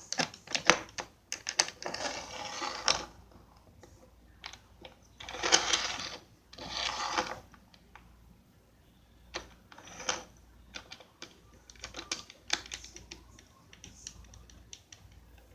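Wooden stop block slid back and forth in a T-track: several scraping slides of a second or two each, mixed with scattered clicks and knocks.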